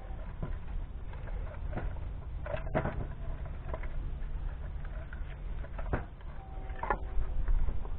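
Split firewood pieces knocking and clunking together as they are picked off a trailer load, several separate knocks over a steady low rumble.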